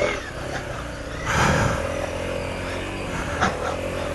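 Motorcycle engine running steadily, with a surge of noise about a second and a half in, after which a steady engine tone settles in.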